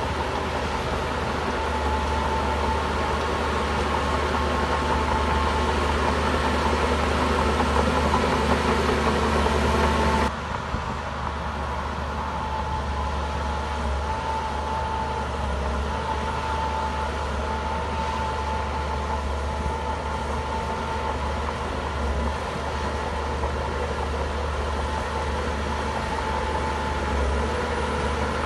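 Heavy diesel engine of earthmoving equipment running steadily. About ten seconds in the sound drops suddenly to a lower, steady level.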